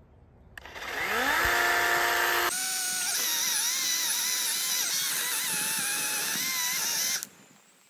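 DeWalt 20-volt battery chainsaw's electric motor spinning up with a rising whine, then running hard as the chain cuts into a small tree trunk, its pitch wavering as it is loaded. It cuts off suddenly near the end.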